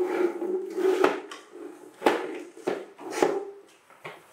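Hard plastic toy truck handled by a young monkey: its wheels whir as they spin on their axles, with sharp plastic knocks about once a second.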